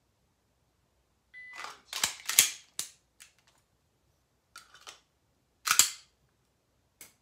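Sharp snaps and clacks from a pistol being handled and worked. A quick cluster of loud snaps comes about two seconds in, a few lighter clicks follow around five seconds, and one more loud snap comes near six seconds.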